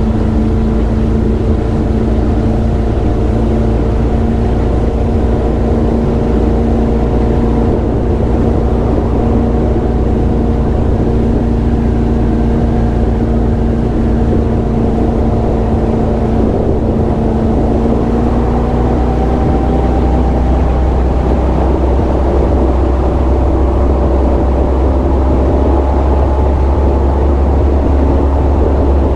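Powerboat engine running at speed, a steady drone over a low rumble and the rush of the wake; the engine note rises slightly about two-thirds of the way through.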